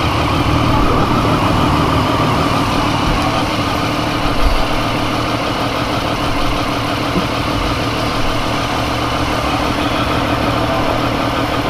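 Triumph Street Triple's inline three-cylinder engine idling steadily, with no revving.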